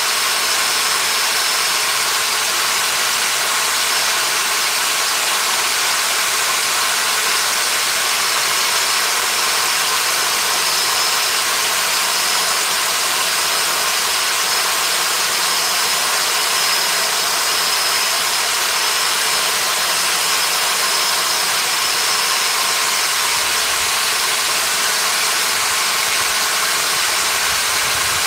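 A power tool running continuously at an even speed: a steady hiss with a constant high whine.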